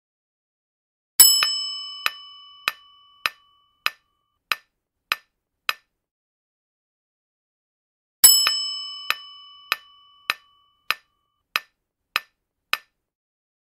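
Quiz-game sound effects: a bright bell-like chime that rings out for a couple of seconds, followed by evenly spaced clock-like ticks about every 0.6 s, as for a countdown timer. The chime-and-ticks pattern happens twice, about seven seconds apart.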